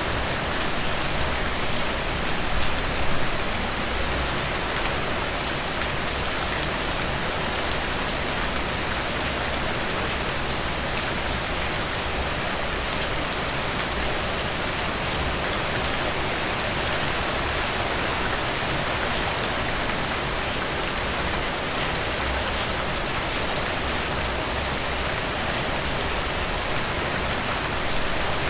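Heavy rain falling steadily on a surface, a continuous hiss with fine drop patter, swelling slightly a few seconds in.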